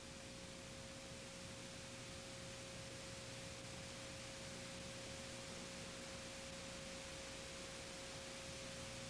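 A steady, unchanging pure tone with tape hiss behind it: the line-up reference tone recorded under a TV commercial's slate on videotape.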